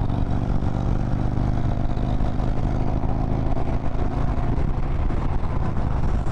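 Harley-Davidson Road Glide motorcycle engine running steadily while riding at an even speed.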